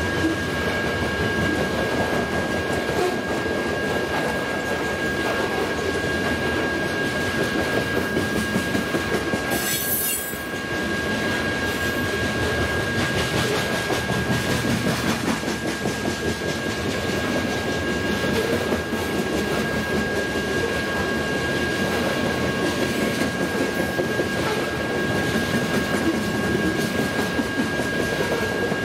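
BNSF covered hopper grain cars rolling past, their steel wheels clacking over the rail with a steady high-pitched squeal. A brief high hiss about ten seconds in.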